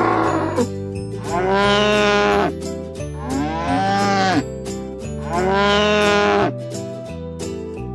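A cow mooing three times, each moo about a second long and rising then falling in pitch, over background music.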